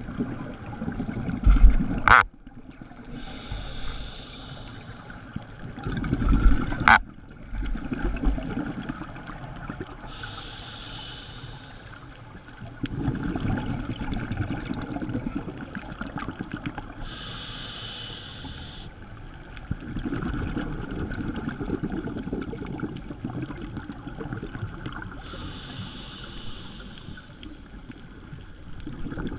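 Scuba diver breathing through a regulator underwater: a hiss on each inhale, then a low bubbling rush of exhaled air, about every seven seconds. The first two exhales end in a sharp click.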